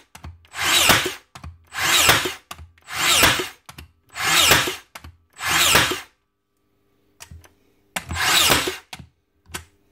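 Makita DBN600 cordless 16-gauge finish nailer firing shot after shot into chipboard: six short motor-driven cycles about one a second, then a pause of about two seconds before one more. It now fires every time, its drive cylinder freshly greased so the seal pulls the drive pin back for the next nail.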